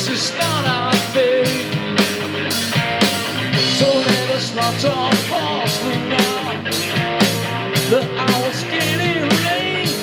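Live rock trio playing an instrumental passage: an electric guitar line with bent, wavering notes over bass and a steady drum beat.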